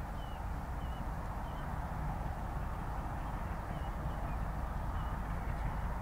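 A bird calls in short chirps, one every second or so, over a low steady rumble.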